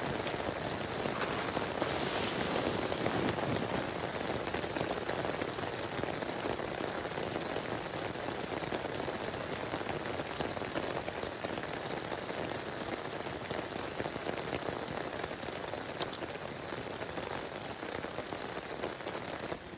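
Rain falling steadily on a DD Hammocks Ultralight tarp overhead.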